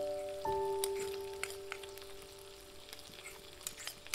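Background music with long held notes, over a light crackling sizzle from chicken, sausage and shrimp frying in a wok.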